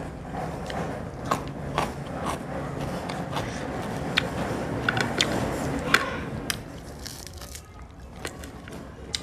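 Close-miked chewing and crunching of food, with many sharp crisp crunches in the first six seconds that thin out and grow quieter after about seven seconds.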